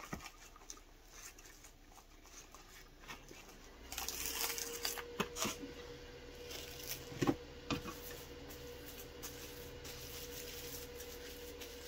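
Plastic wrap being pulled, crinkled and handled while raw steaks are wrapped, with scattered soft clicks and a few light knocks. About four seconds in, a steady low hum with a thin tone starts and keeps going.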